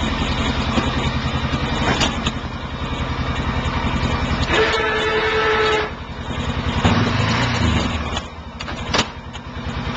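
ATV engine running with an even, pulsing idle, then revving up briefly about seven seconds in. A short steady tone sounds about halfway through, and sharp clicks come about two seconds in and again near the end.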